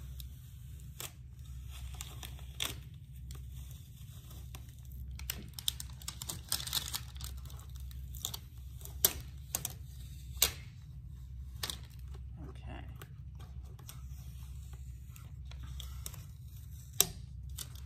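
Single-use adhesive stencil being peeled slowly off a painted wooden board, with irregular crackles and sharp ticks as the film lifts away from the paint.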